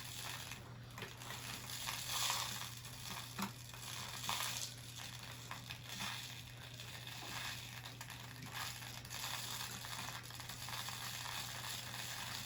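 Seed beads swirling and rustling in a spinning solid wood bead spinner bowl, a continuous gritty hiss that swells and fades as the bowl is turned.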